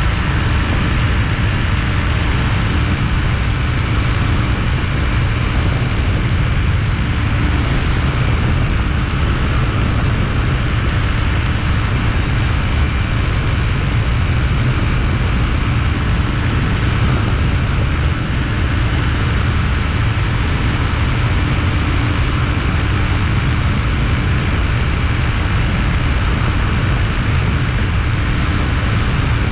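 Weight-shift trike ultralight's engine and propeller running steadily in cruise flight, mixed with wind rushing past the wing-mounted camera.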